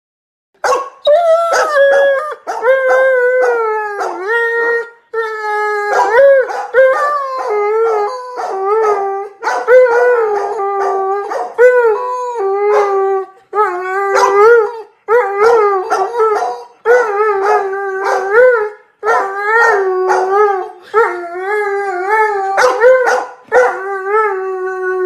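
Doberman howling: a long run of wavering howls, each one to two seconds long, with short breaks between them. The howling starts under a second in.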